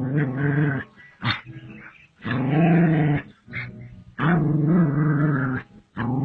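A dog growling: four drawn-out, low growls of about a second each, with a short sharp sound between the first two.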